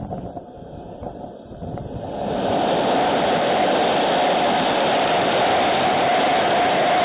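Storm-force wind roaring over a surveillance camera's microphone. A few knocks and rattles come first, then about two seconds in the wind swells quickly to a loud, steady roar.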